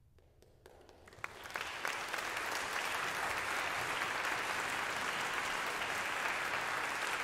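Audience applause: a few scattered claps that swell within about two seconds into full, steady clapping.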